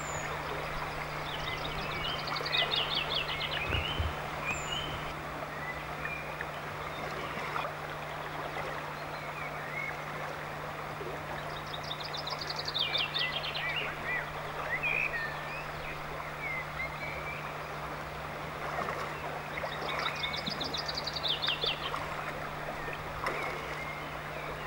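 Running water of a shallow river flowing over faster, broken water, with songbirds in the trees. One bird sings a short phrase of rapid notes stepping down in pitch three times, about every nine seconds, among scattered chirps.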